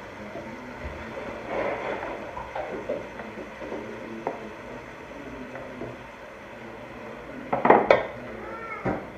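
Metal utensil clinking and scraping against a cooking pot while chicken pieces are stirred into a tomato base, with a louder clatter near the end.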